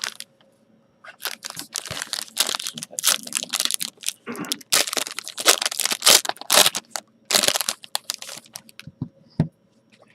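Plastic wrapping on a sealed box of trading cards being torn open and crinkled by hand: a dense run of sharp crackles and rips, thinning out to a few small clicks near the end.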